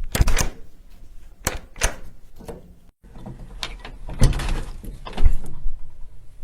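Doors being opened, heard as two separate takes split by a brief silence about three seconds in: sharp clicks and knocks of a latch and handle working, with the loudest knocks in the second take.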